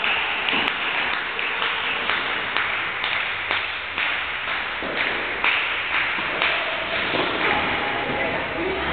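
Spectators clapping in a steady rhythm, about two claps a second, over general crowd noise.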